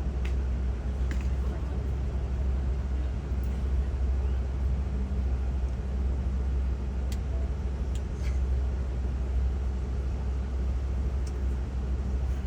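Safari ride truck's engine running steadily, a constant low rumble heard from on board the open-sided vehicle, with a few faint clicks.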